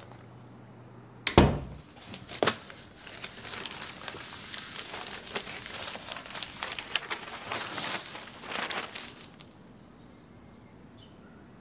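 A sharp thump about a second in and a second knock shortly after, then newspaper pages rustling and crinkling as a broadsheet is unfolded and spread open on a desk. The rustling stops near the end.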